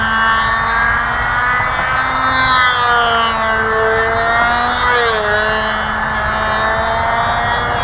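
Ringmaster control-line model airplane's small engine running at full power, a steady high buzz whose pitch rises and falls gently as the plane circles on its lines.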